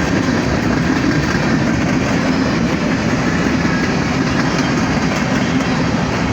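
Empty BNSF coal train rolling past close by: steel wheels running on the rails in a loud, steady rumble.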